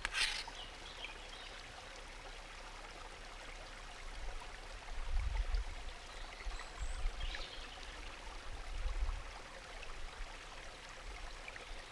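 Steady rush of a river's flowing water. A brief sharp sound right at the start, and low rumbles on the microphone around the middle.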